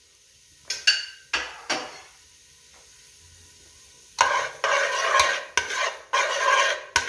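Onion frying gently in pork lard in an aluminium pot, with a faint sizzle. A metal spoon taps the pot twice about a second in, then from about four seconds in scrapes the pot in rhythmic stirring strokes, about two a second.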